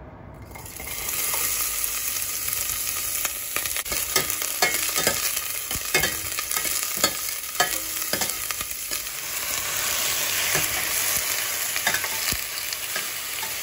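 Chopped onions sizzling in hot oil in a stainless steel pot, starting about half a second in. A metal ladle clicks and scrapes against the pot as they are stirred, most often in the middle of the stretch.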